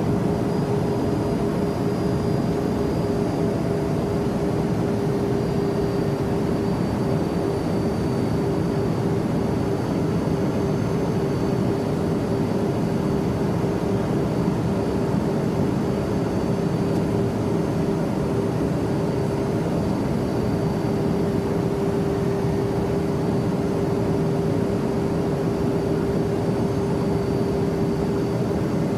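Cabin interior of a Learjet business jet in flight and banking: a steady, even rush of engine and airflow noise with a constant hum running through it and a faint high whine above.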